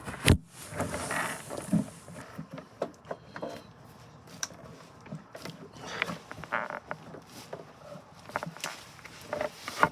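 Power supply cable and plug being handled and connected: scattered clicks, knocks and rustling, with one sharp click just after the start.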